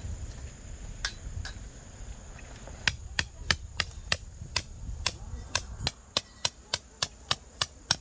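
A hammer driving tent pegs into the ground: two single blows, then from about three seconds in a steady run of sharp strikes, about three a second.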